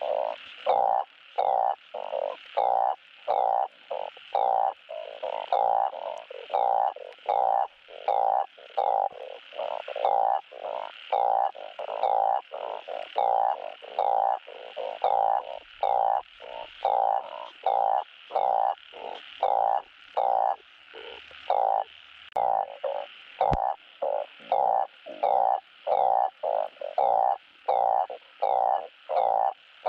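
Balloon frog (Glyphoglossus molossus) giving its mating call over and over: short, low croaks at a little over one a second. One sharp click about two-thirds of the way through.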